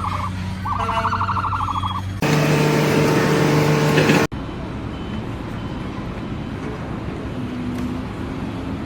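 A warbling, alarm-like electronic tone in pulses of about a second over a steady engine hum, then an abrupt cut to a louder, steady droning machine tone for about two seconds, then another cut to a steady rumbling noise of machinery.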